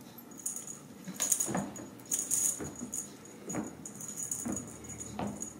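Rattling and jingling from a kittens' toy being batted and pounced on, in short irregular bursts.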